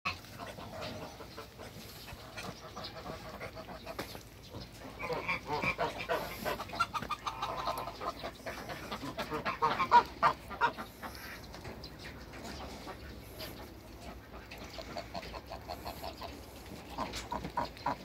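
Mixed farmyard poultry calling: a busy run of short calls in the middle, a few more near the end.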